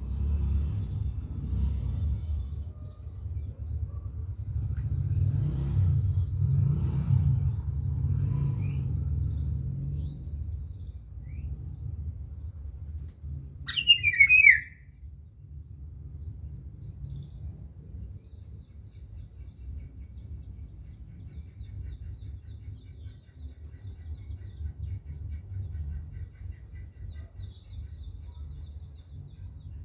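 A bird gives one short, loud call about halfway through, over a steady faint high hiss and a low rumble that fades after the first half; faint, fast, high trills follow later.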